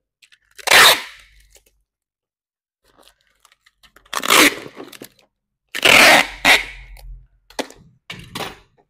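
Cardboard and plastic packaging being handled: five short crinkling, crunching bursts with pauses between them, the loudest about six seconds in.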